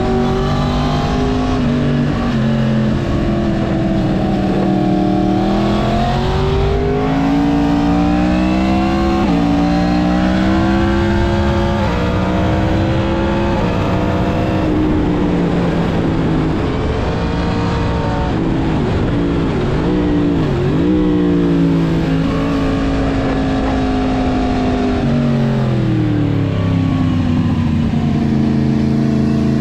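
Yamaha MT-10's crossplane inline-four engine through a full Mivv aftermarket exhaust while riding: the revs climb and step down again and again through gear changes, with a quick wavering run of blips past the middle, then fall low and rise again near the end.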